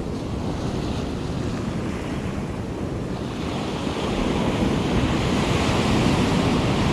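Ocean surf breaking and washing on a sandy beach, a steady rushing hiss with wind buffeting the microphone. The wash grows louder about three seconds in.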